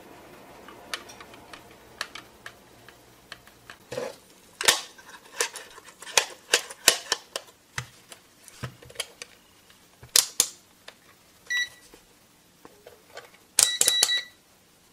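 Plastic clicks from handling an AstroAI DM6000AR digital multimeter and turning its rotary function switch through its detents. The meter's beeper sounds a short high tone a little past the middle, then again with a quick burst of clicks near the end.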